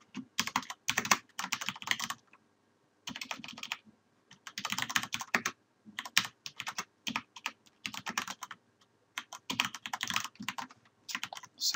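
Typing on a computer keyboard: quick runs of key clicks, broken by a couple of short pauses.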